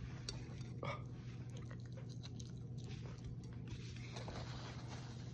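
A person's quick breaths and mouth and lip noises, with one short gasp about a second in, as he reacts to the burn of a scorpion and Carolina Reaper hot sauce; a faint steady hum runs underneath.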